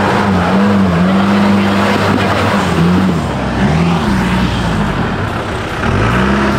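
Engine of an off-road 4x4 held at high revs, dipping in pitch twice near the middle and revving up again near the end.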